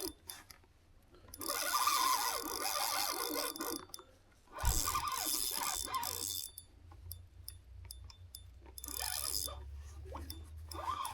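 Fishing reel ratcheting in three bursts, with quieter gaps between them, as a hooked rainbow trout is played and line is wound in or pulled off against the drag.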